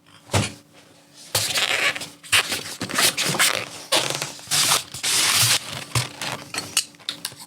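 Irregular rustling and scraping noises in a run of short, uneven bursts, busiest in the middle.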